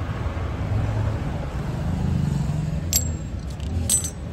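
Tubeless-tyre plug insertion tool pulled from the tyre and dropped onto a steel floor plate: a sharp metallic click about three seconds in and a short metal clatter near the end, over a low steady rumble.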